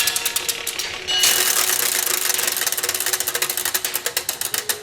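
The Zeitglocke tower clock's centuries-old clockwork running: a rapid, continuous clatter of gears and ratchet clicks, growing louder and denser about a second in.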